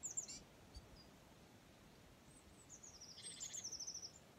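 Small birds singing in high-pitched chirps: a short phrase at the start, then a longer trill of rapid repeated notes that falls slightly in pitch, about two to four seconds in.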